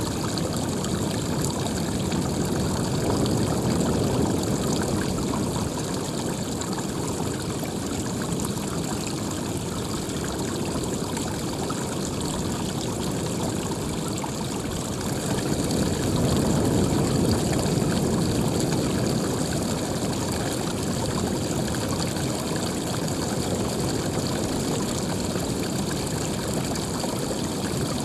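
Running water, a continuous steady splashing rush, swelling slightly twice: a few seconds in and again just past the middle.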